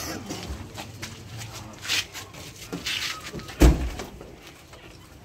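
Police jeep's door slammed shut with a loud, deep thud about three and a half seconds in, after a lighter knock about two seconds in.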